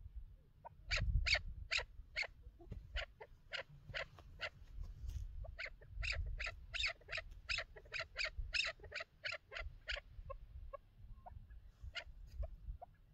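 Chukar partridge calling: a long run of sharp clucking notes, about three a second, starting about a second in and thinning out to a few scattered notes after about ten seconds.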